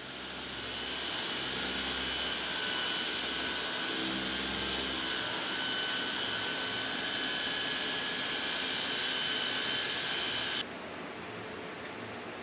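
Compressed air blowing out a car emblem: a loud steady hiss with a faint high whistle, cutting off suddenly about ten and a half seconds in.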